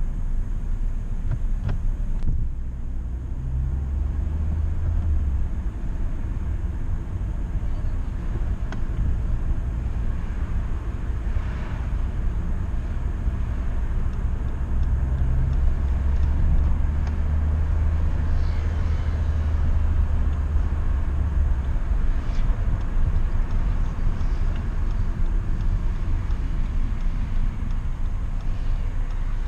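A 2011 Honda Civic's 1.4-litre petrol engine and tyres under way, heard from inside the car as a steady low rumble. A deeper engine drone swells briefly near the start and again for several seconds in the middle.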